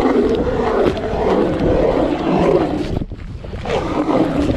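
Motor-driven ice auger running as it bores through the lake ice. Its pitch wavers with the load, and it drops briefly about three seconds in before picking up again.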